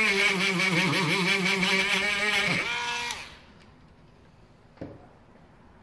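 Small handheld 12 V rotary tool whining with its tip against a battery cell's aluminium tab, the pitch wavering and dipping as it bites. It spins down about two and a half seconds in and stops just after three seconds. A single light tap follows near the end.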